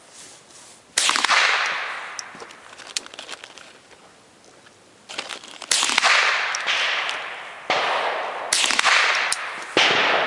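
.22LR rifle shots at an irregular pace, five sharp cracks and a couple of fainter ones, each followed by a long echoing tail.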